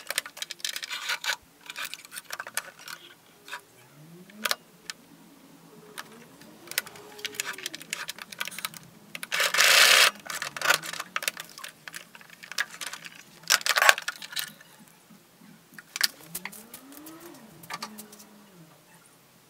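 Fabric being handled and arranged at a sewing machine: scattered clicks and taps with rustling, the loudest a second-long rustle about nine seconds in and a shorter one near fourteen seconds.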